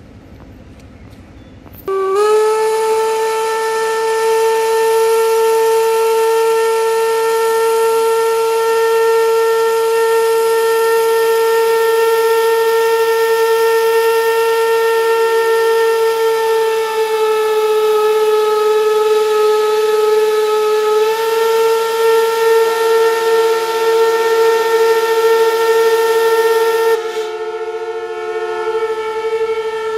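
Steam locomotive whistles blowing one long continuous blast: a steady high tone starts with a short upward slide about two seconds in, further whistles join it, and the loudest one cuts out a few seconds before the end while the others carry on.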